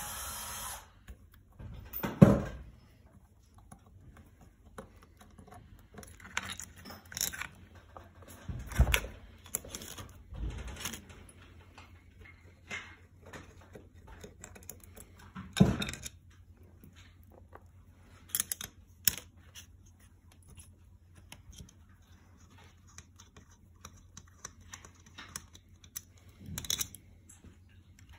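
Hands working inside a magnetic drill's opened electronics housing: scattered clicks, rattles and taps of wires, connectors and metal panels, with a few louder knocks about two, nine and sixteen seconds in. A steady mechanical whir stops just under a second in.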